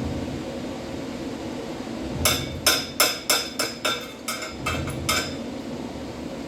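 Chipping hammer striking a stick-welded (SMAW) bead to knock off the slag: about ten quick, ringing metallic strikes over some three seconds.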